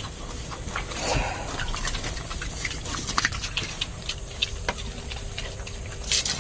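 Pigs eating at a trough and jostling over the feed: irregular chewing and smacking clicks, with a louder rustle about a second in and a brief hiss near the end.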